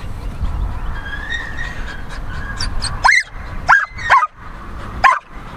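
Australian Shepherd giving about four short, high yelping barks in the second half, eager and impatient to make its jump.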